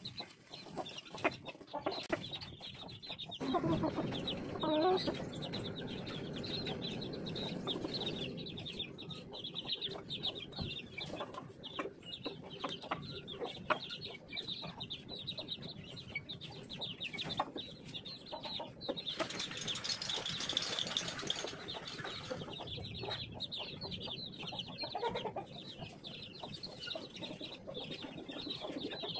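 Chickens clucking and pecking at raw fish scraps on concrete, with many short clicks of beaks striking the slab. The clucking is loudest about four seconds in, and high chick peeping carries on throughout.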